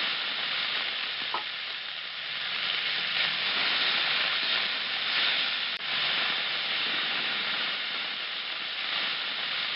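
Steam hissing steadily from a working replica of Stephenson's Rocket locomotive standing in steam, a little louder in the middle.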